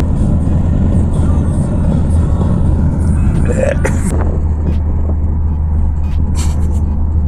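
Car road and engine noise heard from inside the cabin while driving: a steady low rumble, with a few brief rustles and clicks about halfway through and near the end.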